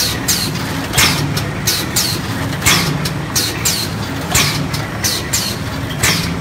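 Candy stick production machinery running: a steady low mechanical hum with short, sharp high hissing strokes that come in pairs about once a second.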